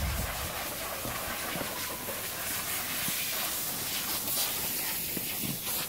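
Footsteps and trekking-pole taps on a dirt mountain trail, a few soft knocks over a steady high hiss.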